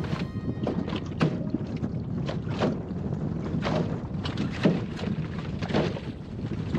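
Wind buffeting the microphone and water slapping a small plywood sailing skiff, with irregular knocks and rustles of sailcloth and spars being handled while the lug sail is reefed.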